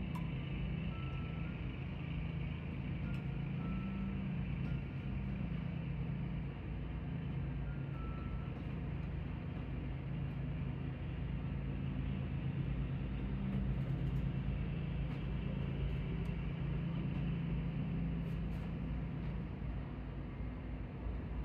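Steady engine drone, muffled through a closed window. A few faint high notes of the ice cream truck's Wolo 345 music chime come through in the first several seconds.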